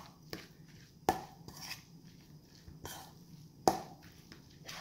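Fork clinking and scraping against a stainless steel mixing bowl while breaking up flaked pink salmon: about half a dozen irregular clinks.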